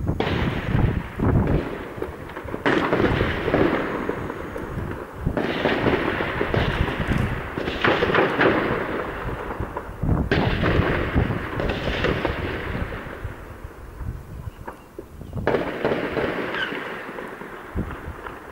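Heavy gunfire from an armed clash: dense, rapid shots echoing between buildings, with louder sudden reports breaking in four times.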